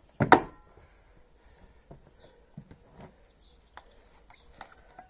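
A single heavy axe blow into a log on a chopping block about a quarter second in: a sharp crack with a brief ring. It is followed by a few quieter knocks as the wood is handled, with birds chirping.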